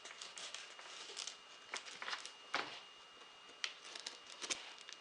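SOG Fielder knife blade cutting through the tape and cardboard of a shipping box: faint scraping and crackling broken by a few sharp clicks.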